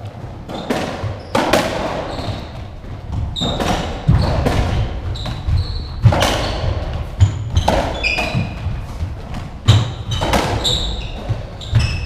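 A racketball rally in a squash court: about a dozen sharp hits of the ball off rackets, walls and floor, each echoing in the court, with short shoe squeaks on the wooden floor between them.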